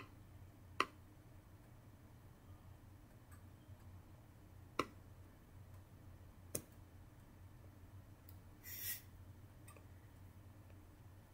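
Fingertip taps on a tablet touchscreen: three sharp clicks a couple of seconds apart over a low steady hum, with a short hissing rustle about nine seconds in.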